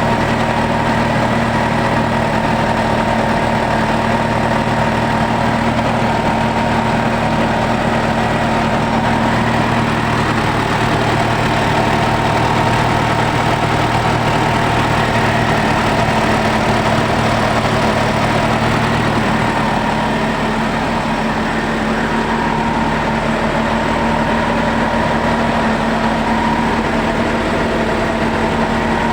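Freshly overhauled Ford Everest engine idling steadily while it is run up for a coolant temperature check. The deepest part of the hum eases off about two-thirds of the way through.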